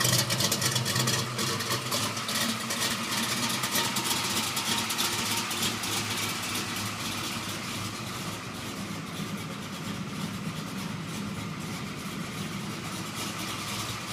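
The 383 stroker small-block Chevrolet V8 in a 1968 Camaro idling steadily. It grows quieter over the first several seconds, then holds level.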